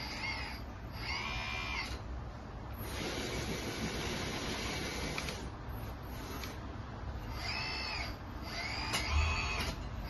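Electric hydraulic pump of a 1/18 Kabolite K961 RC hydraulic excavator running as the boom and arm move. Its whine rises and falls in pitch several times as the sticks are worked. There is a short low knock near the end.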